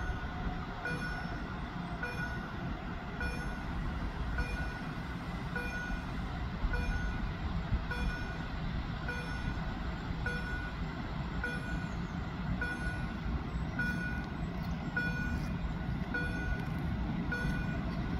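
Passenger train hauled by a PKP Intercity EU160 Griffin electric locomotive approaching, a steady low rumble that grows a little louder toward the end. Over it, a short double electronic beep repeats about once a second.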